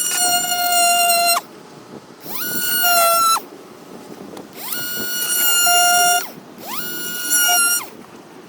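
Oscillating multi-tool cutting away sections of a plastic dash trim panel in four short runs, each whining up to speed, holding a steady high pitch, then winding down.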